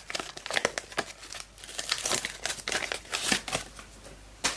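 Trading-card pack wrapper being torn open and crinkled by hand, a run of irregular crackles, with one sharp click near the end.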